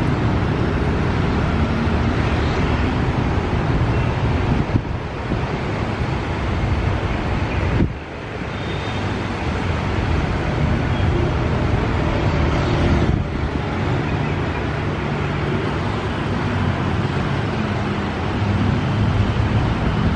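Steady outdoor rumble of wind on the microphone and road traffic, with a brief sudden dip about eight seconds in.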